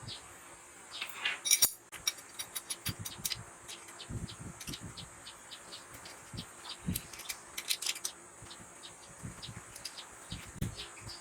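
Irregular light clicks and clinks of small hard parts being handled, a few a second, some louder knocks about a second and a half in and near four and seven seconds.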